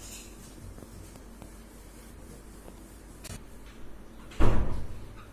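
Faint scratching and light taps of writing, then a brief loud rush of noise about four and a half seconds in.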